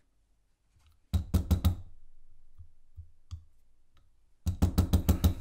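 Brass hair stacker with elk body hair inside, tapped on a wooden tabletop to even the hair tips: a short run of about five knocks just after a second in, then a fast, even run of knocks, about six a second, starting near the end.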